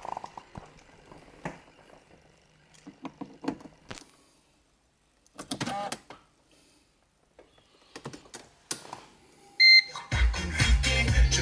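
A Mercedes's ignition key and key ring click and rattle as the key is put in and turned. About ten seconds in there is a short electronic chime as the ignition comes on, and then the car stereo starts playing loud dance music with a steady beat.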